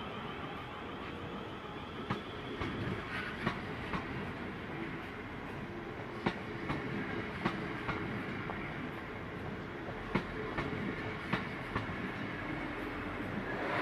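South West Trains passenger multiple unit rolling past, a steady rumble of wheels on rail with paired clicks as each bogie's wheelsets cross a rail joint, about every second or two.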